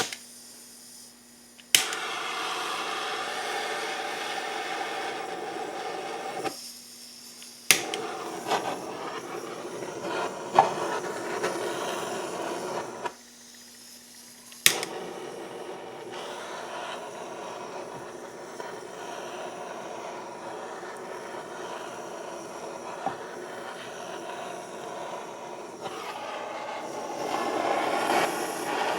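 Handheld gas torch clicked on three times, each click followed by the steady hiss of the flame; the first two burns are cut off after a few seconds and the third runs on. The torch is heating the aluminium engine case so that a tight-fitting bearing will slip into its bore.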